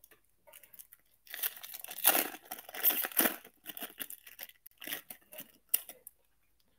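Foil wrapper of a 1998 Topps Chrome trading-card pack being torn open and crumpled in the hand. It makes a run of irregular crinkling and tearing noises that start about a second in, are loudest over the next couple of seconds, and then thin out into scattered crackles.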